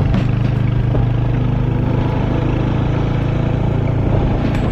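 Royal Enfield Hunter 350's single-cylinder engine running at a steady pitch on the move, over a steady rush of wind and road noise.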